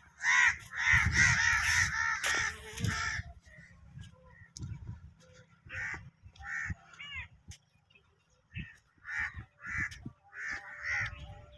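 Crows cawing: a loud run of harsh caws in the first three seconds, then single caws at intervals through the rest.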